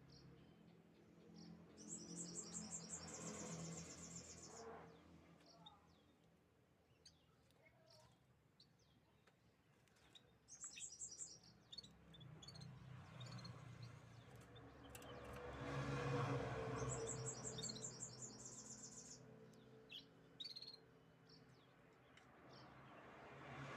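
Canaries chirping: short high chirps scattered throughout, with two fast, high rattling trills, one about two seconds in and another past the middle. A low background rumble swells under the second trill.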